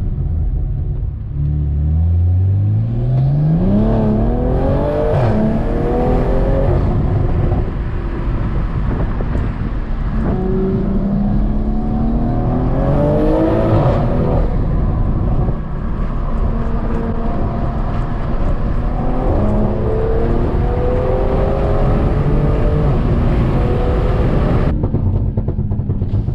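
2020 BMW M340i's turbocharged B58 inline-six, fitted with an aftermarket intake, accelerating hard: the engine note climbs in pitch, falls back at each upshift and climbs again, about three pulls in all.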